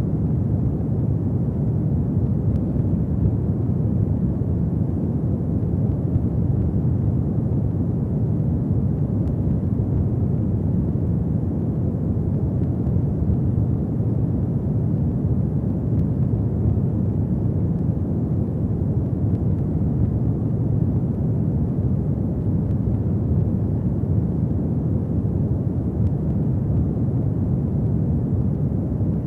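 Fireplace fire burning with a steady low rumble.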